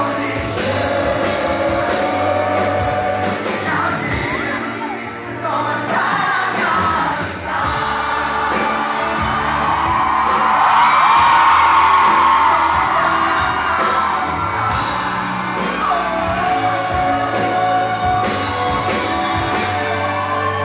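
Rock band playing live: a male lead singer sings into a microphone over electric guitar and drums, loud and amplified.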